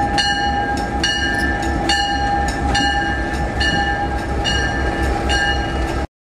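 EMD GP38-2 diesel locomotive with its engine running and its bell ringing, struck about once a second. The sound cuts off abruptly near the end.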